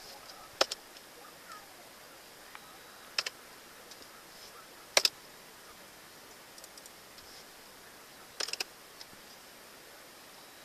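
Four sharp clicks a couple of seconds apart, some in quick pairs or a short cluster near the end, over a faint steady hiss.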